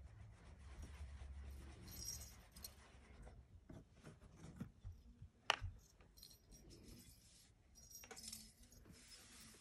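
Faint jingling and rattling of a cat wand toy's plastic lattice ball with a bell inside as it is jiggled about, in short spells, with one sharp tap about five and a half seconds in.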